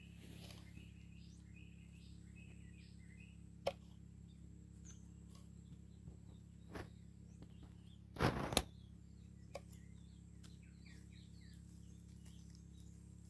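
A large knife chopping green onion seedlings against a wooden stool top: a few sharp knocks, one a little under four seconds in, another near seven, and a louder quick cluster a little past eight seconds. Small birds chirp faintly throughout over a low steady hum.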